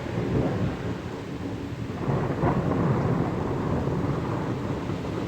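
Thunder rolling after a lightning flash: a low rumble that swells about two seconds in and keeps going.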